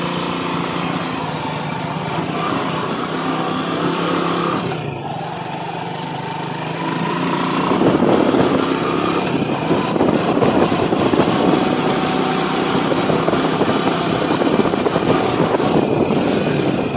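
Motorcycle engine running while riding along a dirt trail; about eight seconds in it grows louder and rougher as the bike picks up speed.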